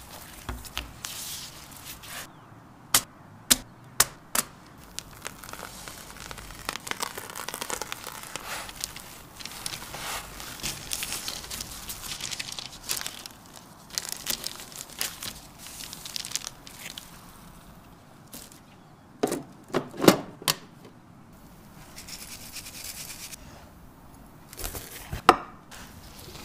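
Paper and disposable plastic gloves rustling and crinkling as a thin crepe is handled and rolled up. Sharp knocks and taps are scattered through, the loudest cluster about twenty seconds in.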